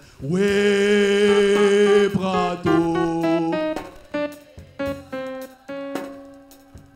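A man singing a French worship song into a microphone, holding one long note on 'Oui' and then singing 'prends', with plucked guitar accompaniment.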